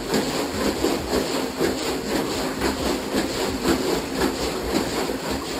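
Rinse water sloshing and churning inside the Camco 41545 cassette toilet's plastic waste tank as the tank is shaken hard back and forth, a continuous run of rapid splashing strokes. This is the rinse stage of emptying the tank, where the shaking breaks loose residue stuck to the tank walls.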